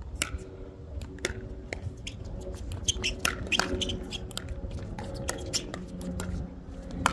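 Pickleball rally: paddles striking the plastic ball in a string of sharp pops, several a second at times, over the low rumble of wind on the microphone.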